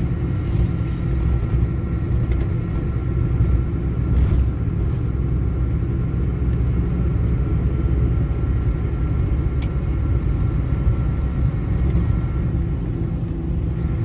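Car driving on an unsealed dirt road, heard from inside the cabin: a steady low rumble of engine and tyres, with a couple of faint clicks.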